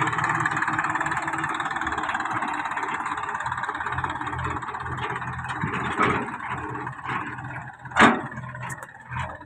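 Massey Ferguson 241 DI tractor's three-cylinder diesel engine running steadily, with a single sharp knock about eight seconds in.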